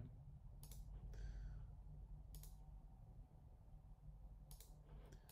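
Near silence: a low steady hum with three faint, short computer-mouse clicks, spaced out, as a point is picked and dragged.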